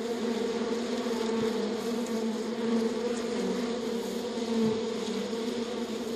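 Many honeybees buzzing together: a steady, slightly wavering hum with a low drone and a stronger note about an octave above it.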